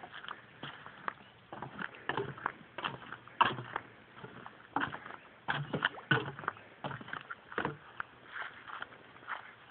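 Footsteps of a person walking off the wooden dock steps and onto the lawn: an irregular run of knocks and scuffs, the loudest about three and a half seconds in.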